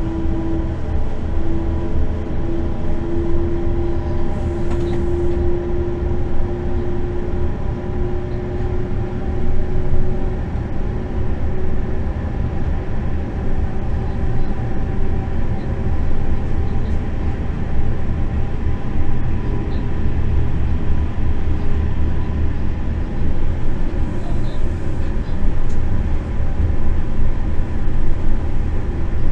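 Electric locomotive running along the line, heard from its driver's cab: a steady rumble of wheels on track with the whine of the traction drive. One whine tone rises slightly over the first ten seconds or so, then fades.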